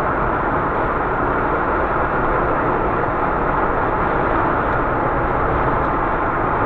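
Car driving at high speed, around 175 km/h: a steady mix of road, wind and engine noise with no knocking in it.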